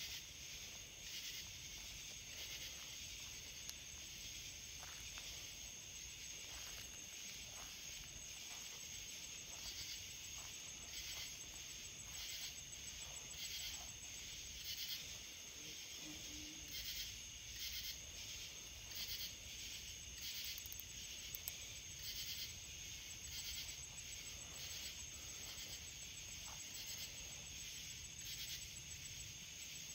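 Night chorus of crickets and other insects: a steady high trill with pulsing chirps over it, and a faint low rumble underneath.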